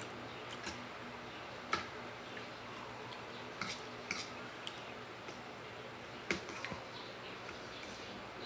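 Metal fork clinking and scraping against a ceramic plate as noodles are twirled: a handful of short, sharp clicks, irregularly spaced.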